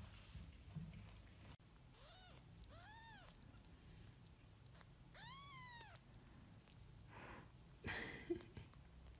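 A very young kitten mewing faintly: two short, high mews and then a longer one, each rising and falling in pitch. A couple of brief soft rustling noises follow near the end.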